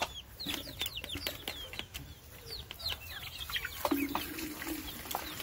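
Chickens clucking and giving short high chirps while they peck cracked corn from a plastic feeder, with many quick sharp taps of beaks on the feeder tray.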